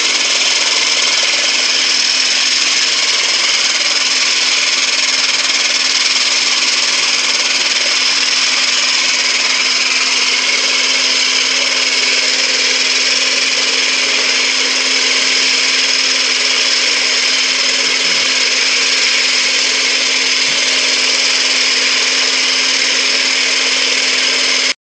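Klindex Exterma stand-up concrete grinder-edger with counter-rotating pucks running steadily: a constant motor hum under a loud, high grinding hiss.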